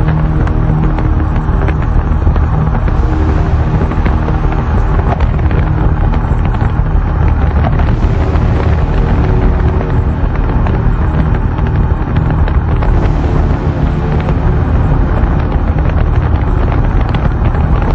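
Steady road and engine noise heard inside a moving car, deep and unbroken.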